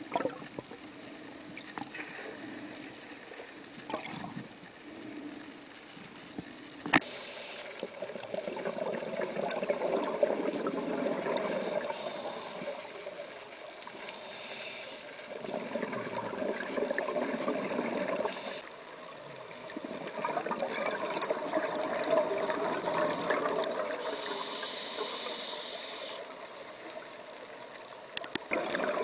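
Scuba diver breathing through a regulator underwater: a hiss on each inhale alternates with a long bubbling rush on each exhale, every few seconds. The first seven seconds hold only quieter water noise and end with a sharp click.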